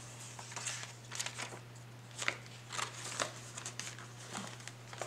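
Paper banknotes and the plastic pockets of a cash envelope binder rustling and crinkling as cash is handled, in a run of short, irregular rustles.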